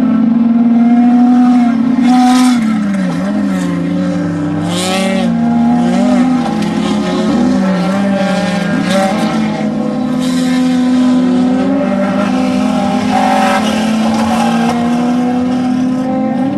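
Off-road race vehicle engines revving hard, the pitch climbing and dipping again and again as the throttle is lifted and reapplied. A few short bursts of hiss cut in over the engine noise.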